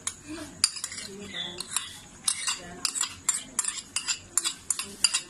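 Quick, irregular clicks and scrapes of a spoon against a plastic tub and a non-stick wok as cream is scooped into the simmering mutton curry.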